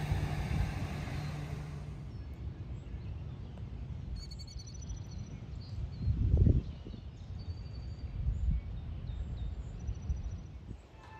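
Outdoor background of low rumbling noise, heavier in the first couple of seconds, with a low bump about six and a half seconds in and a smaller one near eight and a half. A few faint, high bird chirps come through now and then.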